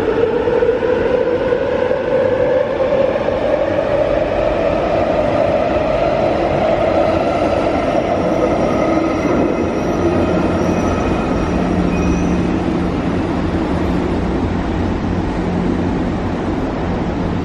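SP1900 electric train pulling out of the station behind platform screen doors: its traction-motor whine rises steadily in pitch over the first several seconds, then fades as the train leaves, and a steady low hum remains.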